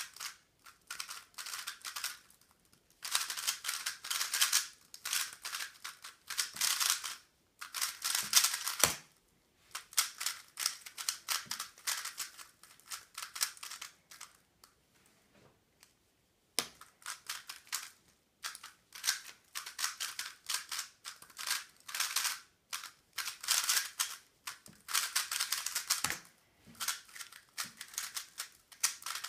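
3x3 plastic speedcube being turned very fast: rapid runs of clicking and clacking as the layers snap round, broken by short pauses, with a low knock about nine seconds in.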